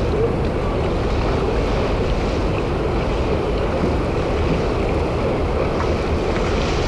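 Steady low rumbling harbour noise, with wind on the microphone and water. It runs evenly, with no separate events standing out.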